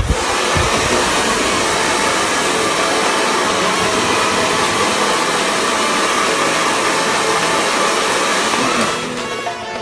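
Handheld hair dryer blowing steadily, a loud, even rushing whoosh that dies down near the end.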